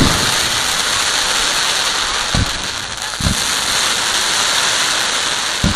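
Fireworks display: a dense, steady crackle of glittering white effects, with three dull booms from mortar shells, about two and a half seconds in, a second later, and near the end.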